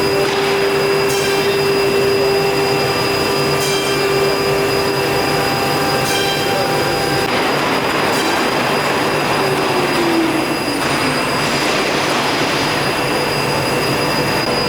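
CNC router's spindle running and cutting a panel: a loud, steady whining tone over harsh cutting noise. The whine slides down in pitch about ten seconds in.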